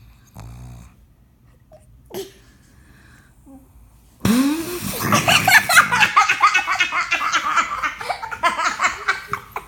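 A brief low snort from a snoring pug about half a second in, then from about four seconds in a person laughing loudly and at length.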